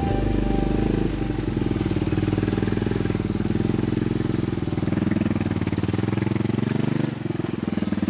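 ATV engine running steadily with a fast pulsing note as it tows a small trailer loaded with hay. The engine note drops about seven seconds in.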